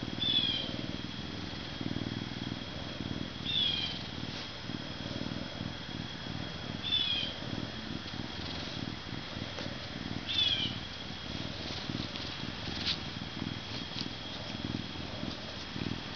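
Canada lynx purring steadily while being stroked. A short high chirp sounds four times, about every three and a half seconds, over the first eleven seconds or so.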